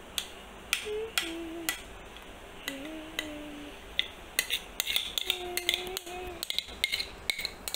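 Spoon scraping and clicking against a mixing bowl as thick chocolate cake batter is scraped out into a glass baking dish, in irregular sharp clicks and knocks.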